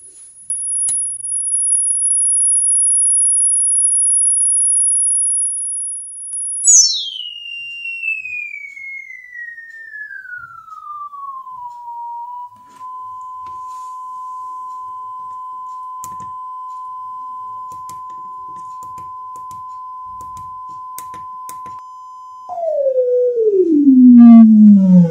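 Sine-wave test tone played through an audio amplifier for a distortion check. It holds a steady high whistle of about 10 kHz for several seconds, glides down to a steady 1 kHz tone, and sweeps down again to a low hum near the end. A few faint clicks sound along the way.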